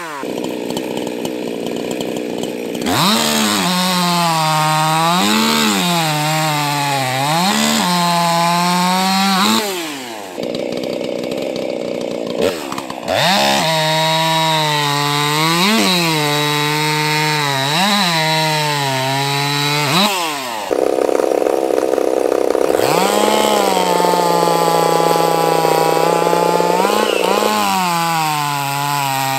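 50cc racing chainsaws cutting through a wooden cant at full throttle, one run after another. In each cut the engine note drops under load and then shoots up as the chain breaks through, about three times per run.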